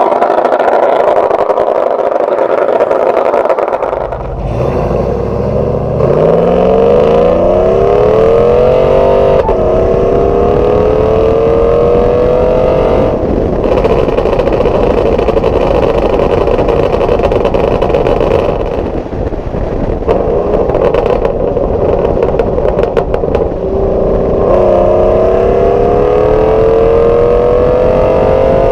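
GMC Sierra pickup's exhaust, through a Bullet muffler, Kooks headers and a catless Y-pipe, under hard acceleration. The note rises through the gears, with shifts about 9 and 13 seconds in and another long pull near the end. In between, an off-throttle stretch pops and crackles from the rich custom tune.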